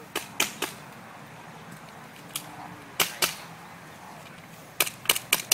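Pistol shots fired on a practical shooting stage: three quick shots at the start, a pair about three seconds in, and a fast string of about five near the end.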